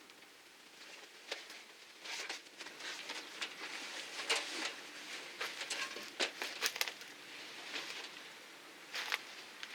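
Irregular crinkling and rustling with scattered sharp clicks, denser in the middle.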